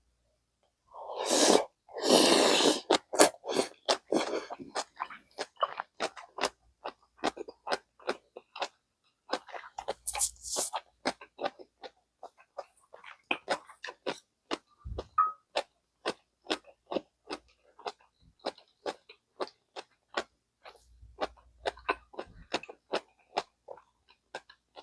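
Close-miked ASMR chewing of gamjatang's pork and potato: a loud wet mouthful about a second in, then steady chewing with sharp mouth clicks about two or three times a second.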